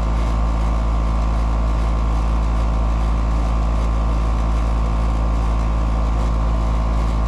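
Outdoor 2.5-ton R22 air-conditioning condensing unit running: compressor and condenser fan giving a steady low hum.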